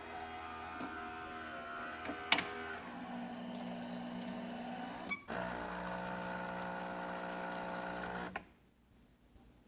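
Saeco Magic Comfort+ super-automatic espresso machine running its brew cycle: a steady motor and pump hum with a click about two seconds in and a brief break about five seconds in, then it cuts off shortly before the end.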